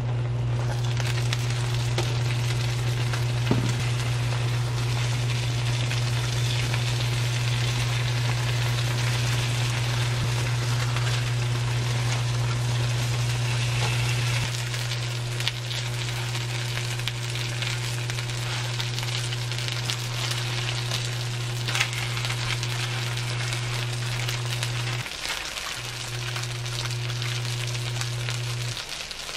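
Hairtail fish sizzling in pans on a cooktop, a continuous crackling hiss. Underneath runs a loud steady low hum that drops a little about halfway through, cuts out for a moment near the end, then comes back.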